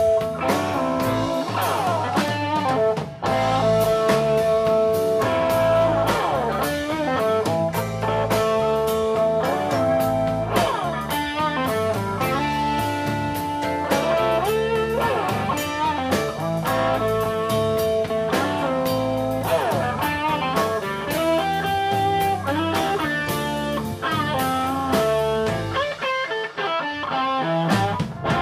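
Live blues band playing an instrumental passage: an amplified harmonica, cupped against the microphone, plays long held and bent notes over electric guitar, bass and drums.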